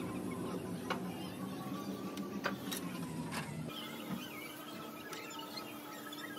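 A few sharp clicks, then from about four seconds in a faint, squeaky sizzling as molten aluminium is poured into the damp sand mould.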